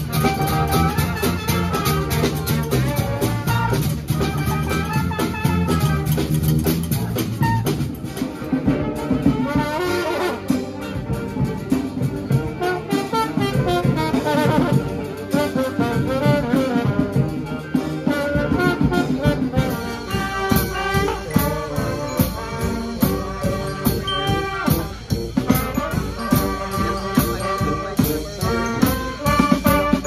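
Live brass street band music: trumpets, trombones, saxophones and sousaphone playing over drums, with the sound changing from one band to another partway through. A steady drum beat stands out in the last third.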